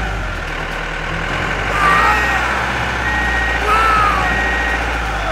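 Truck reversing alarm beeping three times, about once every second and a bit, starting about two seconds in, over a steady engine rumble.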